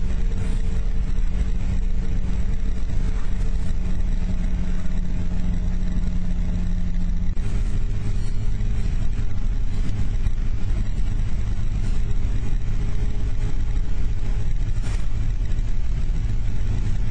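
A vehicle engine and road noise, heard from on board at a steady cruising speed. About seven seconds in, the engine note drops abruptly to a lower steady pitch.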